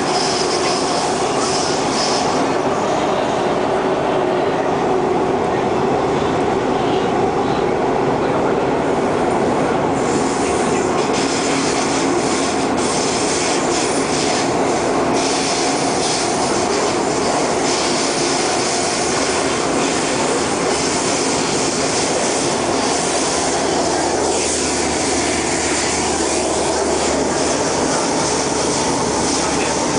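Inside an SMRT C151 metro carriage running through the tunnel: a steady, loud rumble of wheels and running gear on the rails, with wheel squeal. A low hum joins in over the last several seconds.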